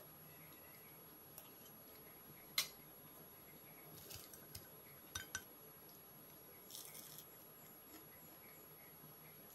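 Quiet eating sounds: a metal spoon clinks sharply against a ceramic plate a few times, the loudest about two and a half seconds in, with smaller clinks a couple of seconds later and a brief dry crackle near the end as fried dried fish is handled and bitten.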